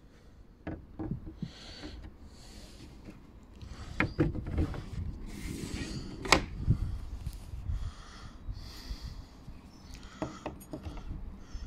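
Scattered light knocks, clicks and scuffs of wooden French doors being handled, and a thin steel blade drawn along the narrow gap between the two closed doors to check the clearance. A sharp click about six seconds in is the loudest.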